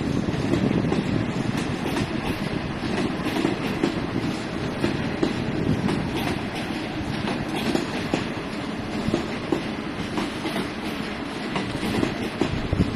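Passenger coaches of a locomotive-hauled train rolling past, a steady rumble of wheels on the rails with clacking over the track.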